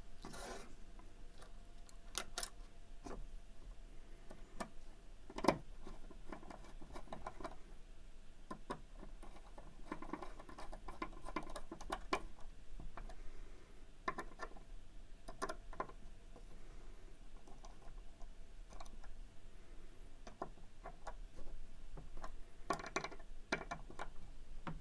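Small metal clicks and light scraping as a pocket clip is screwed back onto a pocket knife with a bit screwdriver. The clicks are scattered and faint, with one sharper click about five and a half seconds in.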